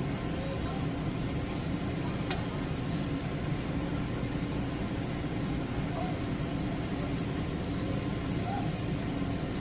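A steady low rumble of running machinery, even and unchanging throughout.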